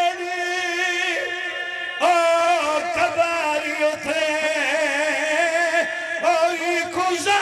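A man chanting a majlis lament in long, held, wavering notes, amplified through a microphone. He breaks off for a moment about a second and a half in, then takes up the chant again.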